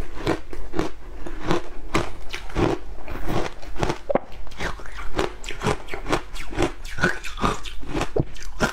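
Frozen matcha ice being bitten and chewed: a steady run of crisp crunches, about three or four a second.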